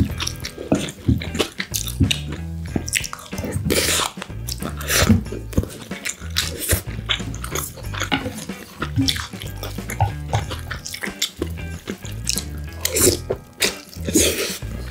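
Close-miked eating sounds: wet chewing and lip smacks on kimchi fried rice, with sharp clicks of a metal spoon and chopsticks against a ceramic plate. A background music track with a low bass line runs underneath.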